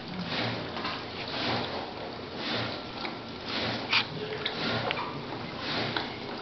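Newborn Jack Russell terrier puppies suckling at their mother: soft breathy snuffling that swells and fades about twice a second, with a few small clicks.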